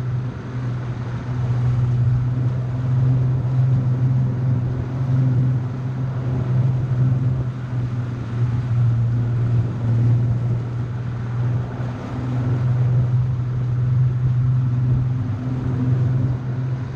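Bass boat's outboard motor running steadily at cruising speed: one constant low drone over a rush of water and wind.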